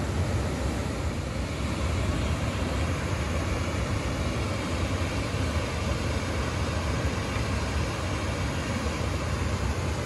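Steady rushing noise with a heavy low rumble and no distinct events.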